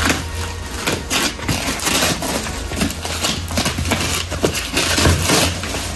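Irregular clicks and knocks of hand tools and metal parts being handled, over a steady low hum.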